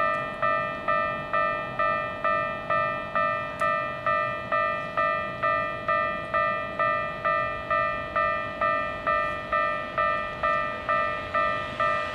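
Japanese railway level-crossing warning bell ringing steadily, about two strokes a second, each ding fading before the next: the crossing is closed for an approaching train.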